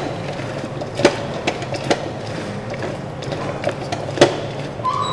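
Kitchen handling sounds: a few sharp knocks and clicks, about five in all with the loudest near the end, over a steady low hum.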